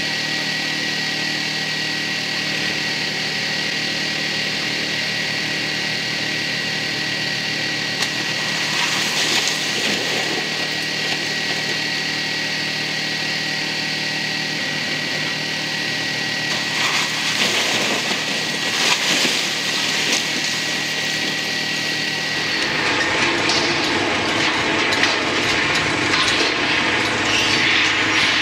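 Heavy machinery running steadily with a high whine while a wrecking ball demolishes a brick building, with a few short crashes of masonry breaking. Near the end the whine gives way to a rougher, louder rumble with cracking as concrete structure is broken up.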